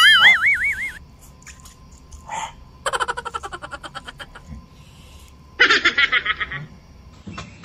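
A cartoon-style warbling tone, wobbling up and down in pitch for about a second at the start. Then two bursts of rapid, stuttering, high-pitched laughter, about three and about six seconds in.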